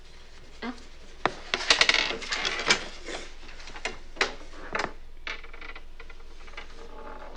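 Small hard objects clicking and clattering against each other or a hard surface: a quick run of clicks about two seconds in, then scattered single clicks.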